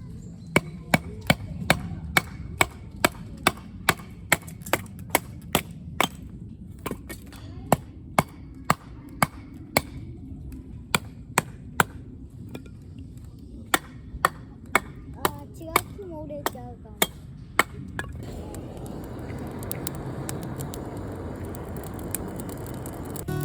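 Firewood being chopped: sharp strokes about three a second at first, then more spaced and irregular, stopping near the end. A steady rushing noise follows them.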